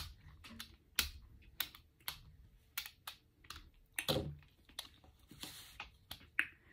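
A brayer rolled back and forth to spread paint over a gel printing plate, making a string of irregular light clicks and taps, with a brief sticky hiss about five and a half seconds in.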